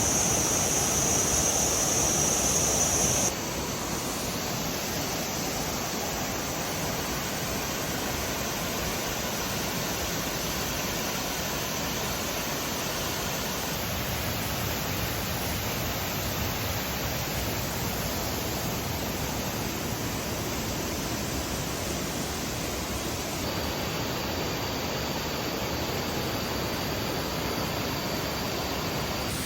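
Waterfall, a steady rush of falling water. About three seconds in the sound drops slightly in level and a high steady hiss on top of it stops.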